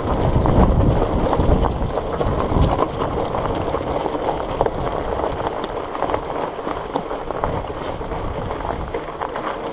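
Fat bike riding over rough ground: tyre noise with small clicks and rattles throughout, and wind buffeting the microphone as a heavy low rumble that eases after the first few seconds.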